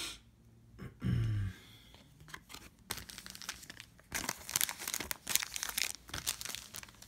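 Trading-card pack wrapper being torn open and crinkled: a dense, irregular crackling that starts about two and a half seconds in and is thickest around the middle.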